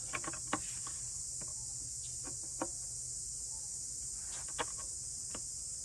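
Crickets chirping as a steady high drone, with a few faint clicks and taps scattered through it.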